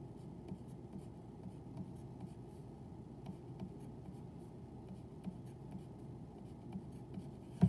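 Pencil writing on a paper worksheet: faint scratching strokes as numbers are written into boxes. A single sharp knock at the very end.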